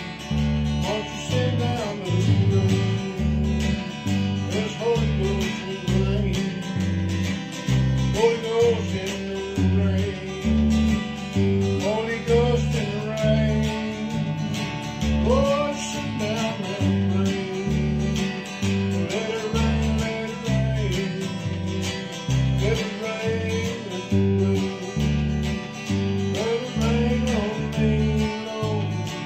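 Electric bass played through a Crate combo amp together with a strummed acoustic guitar, the bass moving through a steady line of deep notes under the guitar's chords.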